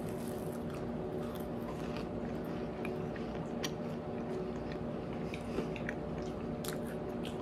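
A person chewing a bite of potato chip cookie, with scattered faint crackly clicks, over a steady background hum.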